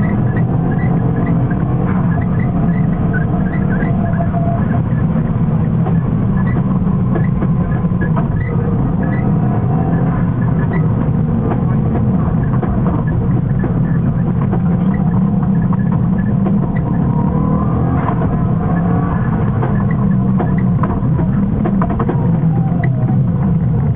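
Subaru Impreza's flat-four engine heard from inside the cabin, driven hard at rally pace. It is loud and unbroken, mixed with road and cabin noise, and its pitch rises and falls in the second half.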